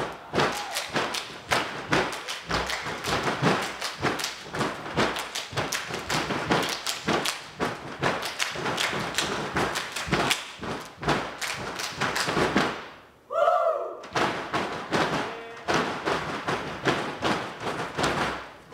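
Step team stepping: fast, rhythmic stomps on the stage with hand claps and slaps against chest and body. The beats stop briefly about two-thirds through for a short shouted call, then pick up again.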